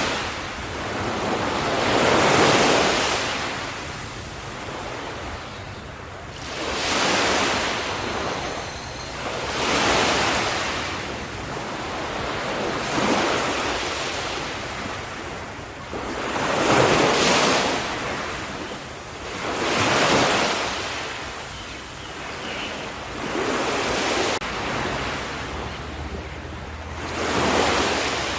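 Ocean waves breaking on the shore: a steady wash of surf that swells and ebbs with each wave, about eight waves, every three to four seconds.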